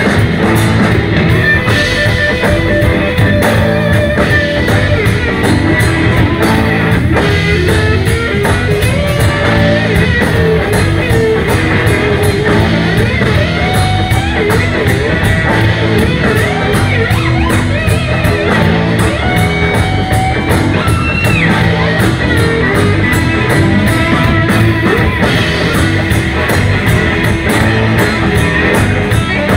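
Live electric blues band playing an instrumental passage: drums, bass and keys hold a steady groove under an electric guitar lead line with sliding, bent notes.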